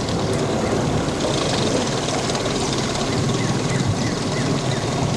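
Outboard motor of a small boat running steadily, with water and wind noise.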